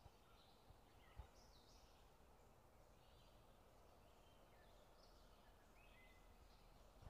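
Faint woodland birdsong: scattered short chirps and whistled phrases from small birds over a low, steady background hiss, with one soft thump about a second in.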